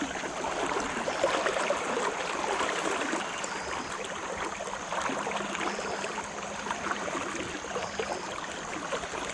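River water flowing steadily around a wading angler, a continuous even wash of current.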